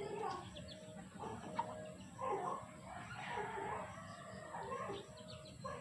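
Many short pitched animal-like calls, one after another, over a low steady hum.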